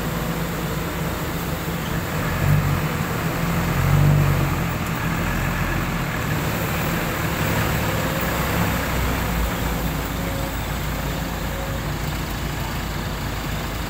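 Diesel engine of a loaded Hino 500 dump truck running under load, rising briefly in revs about two and a half and four seconds in, as the truck struggles for grip in slippery mud.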